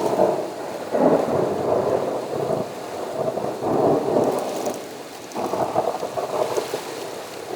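Thunder rumbling in several loud rolling surges over steady rain, the first crack of it breaking just before.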